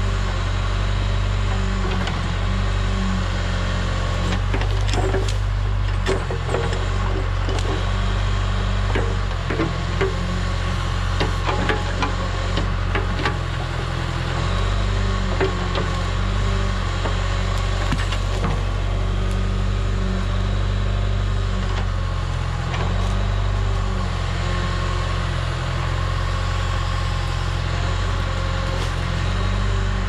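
John Deere 410B backhoe's diesel engine running steadily and working under load, its pitch and level rising and easing as the boom and Wain-Roy jaw bucket move. Over it come scattered sharp cracks and snaps of wood and knocks as the bucket grips and drags roots and brush.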